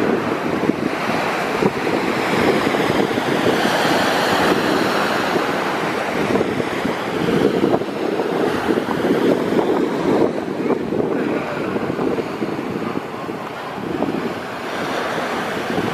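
Ocean waves breaking and washing in as shorebreak, a continuous rushing surf noise that swells and eases, with wind buffeting the microphone.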